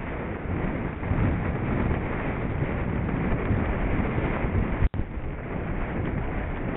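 Wind buffeting the microphone of a rider-mounted camera on a horse galloping cross-country, a steady rushing rumble that cuts out for an instant about five seconds in.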